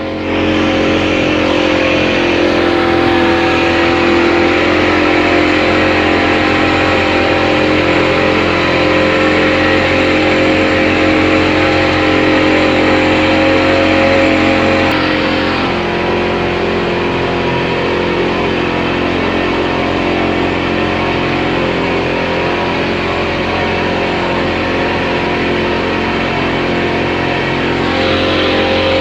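Speedboat engine running steadily at cruising speed. About halfway through, its note drops slightly as it eases off.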